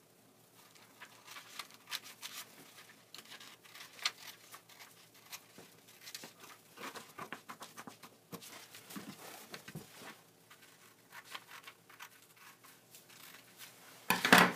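Scissors cutting through sheets of printer paper: an irregular run of snips and paper rustling, with a louder rustle of paper being handled near the end.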